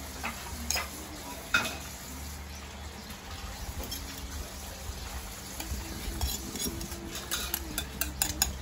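Food frying in a pot, stirred with a metal utensil that knocks against the pot: one sharp knock about one and a half seconds in, and quick clinks near the end.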